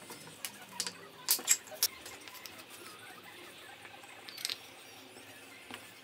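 Light clicks and taps of small mitered wooden frame pieces knocking together and against the bench as they are fitted around a mirror: a quick run of taps in the first two seconds, another about four and a half seconds in.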